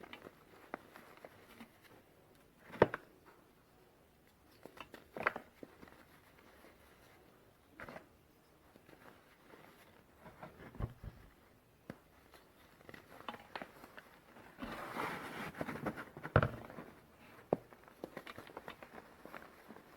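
Pieces of reformed gym chalk being crunched and crumbled: scattered single crunches and snaps, a denser stretch of crumbling about three-quarters of the way through, and one sharp crack soon after.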